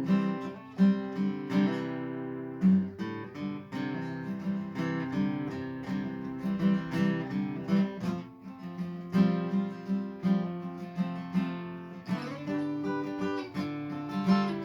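Acoustic guitar strummed and picked in an instrumental break between verses of a country song, with no singing.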